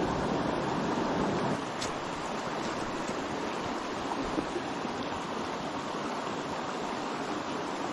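River water flowing steadily, a continuous rushing of current, slightly stronger in the first second or so, with a couple of faint ticks.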